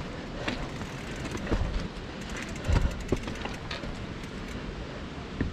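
Mountain bike rolling slowly over rocky trail: tyres crunching on stones, with a few low knocks as the wheels drop over rocks and a short run of fast ticking about halfway through.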